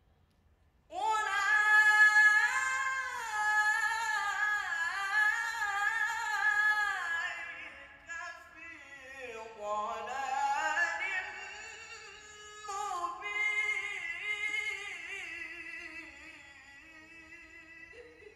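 A young man's voice reciting the Quran in melodic tilawah style into a handheld microphone: long, high, ornamented phrases that begin about a second in. The pitch dips low around the middle, climbs again, and the voice grows quieter toward the end.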